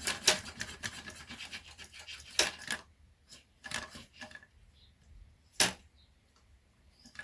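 A small mechanism from a Panasonic SA-AK90 mini stereo worked back and forth by hand: a quick run of clicking and scraping for about the first three seconds, then scattered clicks with one sharp click a little past halfway.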